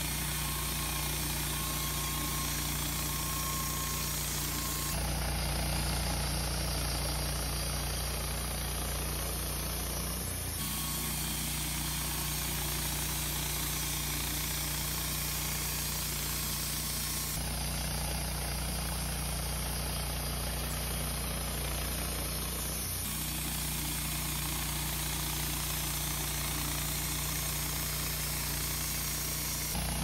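Woodmizer LT15 sawmill's engine running at a steady speed, its tone shifting abruptly every five or six seconds.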